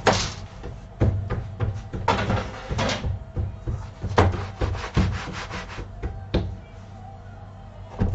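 Metal baking trays knocking and scraping on a wooden workbench: several sharp knocks, a quick rattling run about four seconds in, and a last knock near the end, over a steady low hum.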